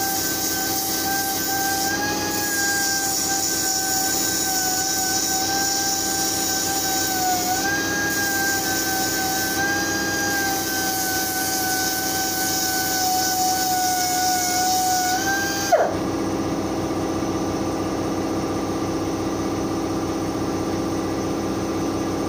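Air-powered Dynafile belt file running at speed, grinding back a motorcycle frame's engine mounting bracket: a steady high whine with hiss, its pitch dipping slightly now and then under load. It stops suddenly about 16 s in. A 100-litre air compressor's steady hum runs underneath throughout.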